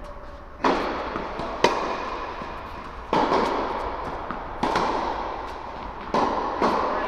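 Tennis ball being struck by racquets and bouncing on the court during a rally, about six sharp pops spaced roughly a second or more apart, each ringing on in the echo of a large indoor tennis hall.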